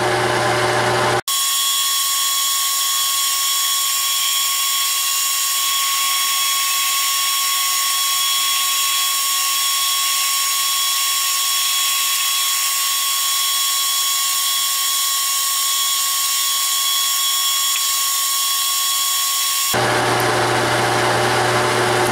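Metal lathe turning a drill-rod part with a carbide insert, chips peeling off the cut. About a second in, the running sound switches abruptly to a high-pitched steady whine with no low end, and near the end it cuts back just as abruptly to the ordinary lower machine sound.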